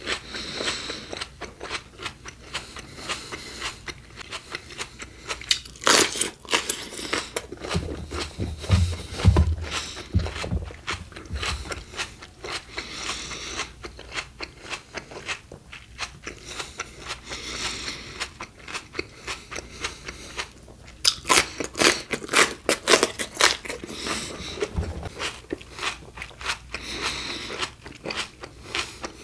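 A person biting and chewing crunchy raw fruit and vegetables close to the microphone. Steady crunching and chewing, with louder clusters of bites about six seconds in and again around twenty-one to twenty-four seconds, and a few low thuds around nine to ten seconds in.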